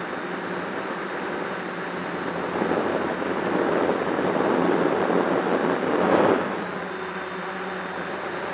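DJI F550 Flame Wheel hexacopter in flight, its six motors and propellers whining steadily. About two and a half seconds in, a rushing air noise swells up, loudest just past six seconds, then drops back quickly.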